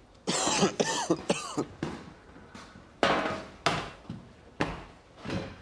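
A person coughing, three coughs in quick succession, followed a second or so later by several sharp knocks.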